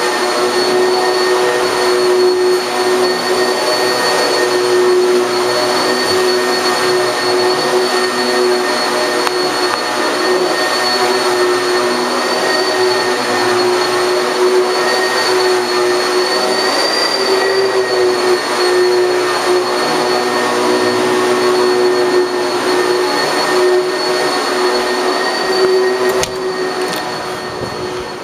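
Vacuum cleaner running steadily: a loud, even motor whine over a rushing hiss, getting quieter in the last couple of seconds.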